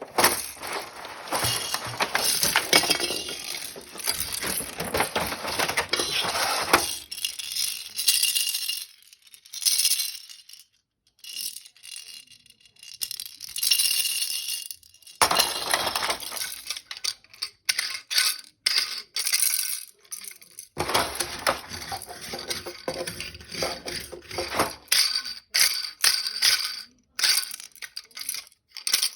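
Plastic baby toys and their packaging being handled and unwrapped: crinkling with many small clicks and clinks of hard plastic, pausing briefly twice.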